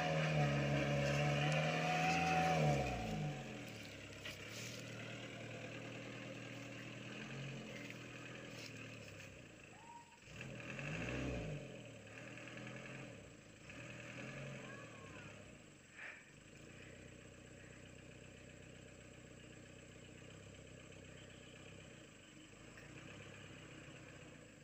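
An old cab-over truck's engine pulling steadily and loudly for the first few seconds, then dropping off and running quieter, with a brief rise and fall in revs about ten seconds in, fading as the truck moves away along the muddy track.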